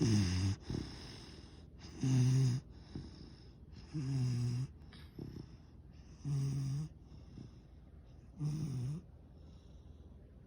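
A yellow Labrador Retriever puppy snoring loudly in its sleep: five snores about two seconds apart, each about half a second long, with quieter breathing between them.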